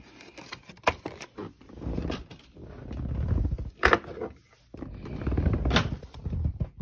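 Rumbling handling noise from a phone held and moved close to the microphone, with three sharp knocks or clicks, about one, four and six seconds in.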